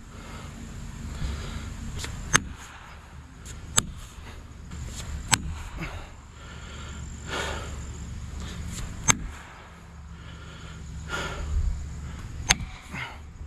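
Five sharp metallic strikes, a second or more apart at uneven spacing: felling wedges being hammered into the back cut to tip the tree over.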